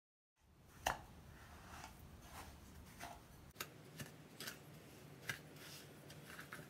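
Irregular light clicks and taps of kitchen utensils, about ten in six seconds over a quiet hiss, the sharpest just under a second in.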